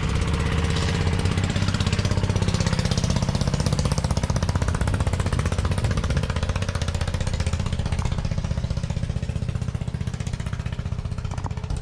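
A motor vehicle's engine running close by, a fast even pulsing over a low hum, growing louder over the first couple of seconds and easing off a little near the end.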